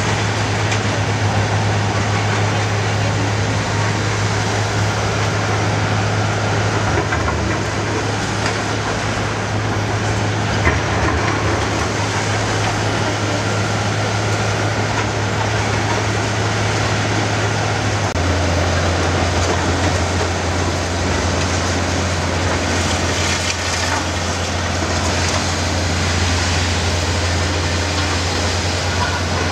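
Diesel engines of tracked hydraulic excavators running steadily on a demolition site, a low drone whose pitch steps down about two-thirds of the way through. A single short knock comes about ten seconds in.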